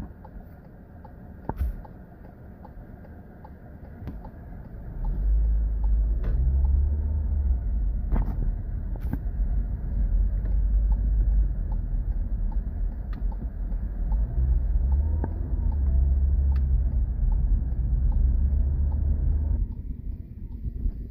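Car driving, heard from inside: low road and engine rumble that swells loud about five seconds in, holds steady, then drops off near the end, with faint scattered ticks throughout.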